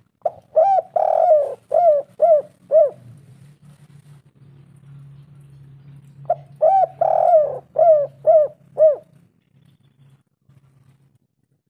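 Spotted dove cooing: two phrases of about five or six coos each, the second starting about six seconds after the first, over a faint low hum.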